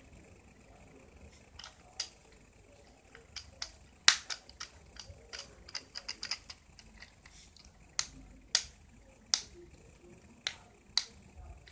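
Sharp, irregular clicks and snaps of a small plastic phone's housing and internal parts being pressed and clipped back together by hand.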